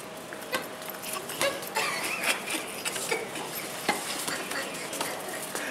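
Hollow plastic ball-pit balls knocking and rustling against each other as they are pushed and stirred, a patter of irregular light clicks.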